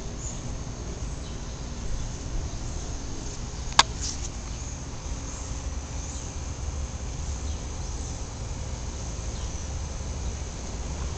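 Garden ambience: a steady high chirring of insects, over a low steady rumble, with one sharp click nearly four seconds in.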